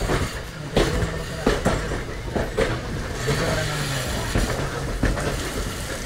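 Poorna Express passenger coaches running on the track, heard from on board: a steady low rumble of the wheels with sharp clacks at irregular intervals as they pass over rail joints.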